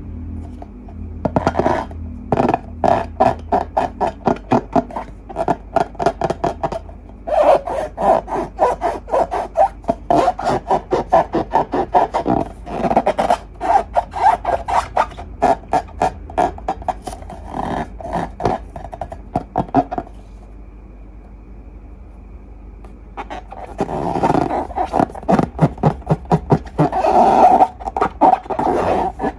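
Hands squeezing and poking slime, making rapid sticky clicks and pops several times a second. The clicking stops for a few seconds about two-thirds of the way in, then starts again.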